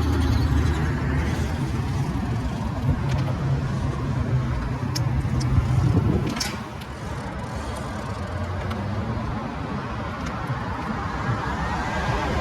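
Street traffic: a motor vehicle's engine running close by with a steady low hum, which drops away about six and a half seconds in, leaving the general noise of city traffic.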